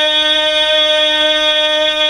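A single sustained drone held at one steady pitch, rich in overtones, with no break or change in pitch.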